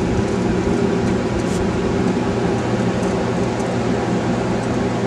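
Zenith tube-type AM radio on test, its speaker giving out steady static with a low hum and no station audio.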